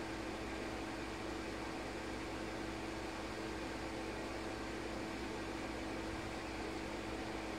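Steady mechanical hum and hiss with one constant low tone, unchanging throughout.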